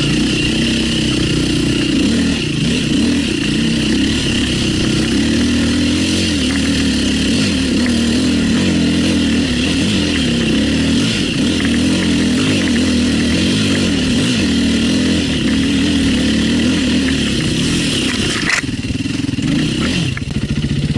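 Enduro motorcycle engine running under load, its revs rising and falling continuously as the throttle is worked on a climb; the engine note drops lower near the end.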